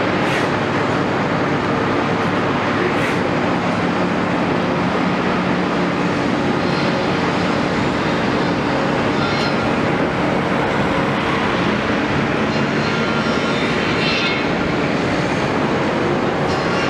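Caterpillar 329E excavator's diesel engine running steadily at a constant pitch, with a few faint, brief sharper noises over it.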